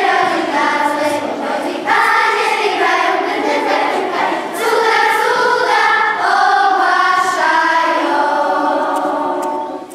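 Children's choir singing a Polish Christmas carol, the last phrase fading away near the end.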